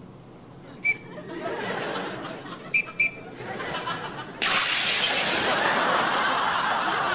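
A few sharp clicks and some laughter, then about four and a half seconds in a sudden loud hiss as a life jacket's gas cartridge inflates it, running on steadily.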